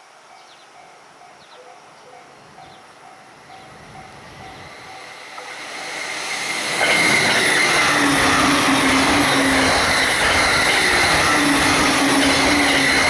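Train on the Joban Line approaching and passing at high speed. A rumble builds from a few seconds in, then at about seven seconds jumps suddenly to a loud, steady rush of wheels on rail as the train runs past close by. At the start, faint quick repeated strokes of a level-crossing bell can be heard before the train drowns them out.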